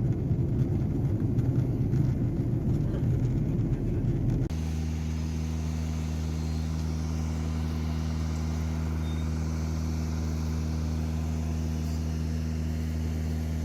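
Steady drone of a vehicle engine. A rough, noisy rumble for the first four and a half seconds cuts abruptly to a smoother, even hum made of several steady low tones.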